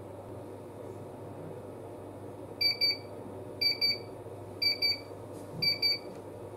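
Freund EZ-200 water activity meter sounding its end-of-measurement alert: short high double beeps, one pair about once a second, four pairs starting about two and a half seconds in, signalling that the measurement has completed. A faint steady hum runs underneath.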